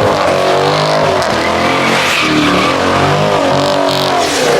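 Car engine revving up and down again and again while the car is driven hard and slid on wet pavement.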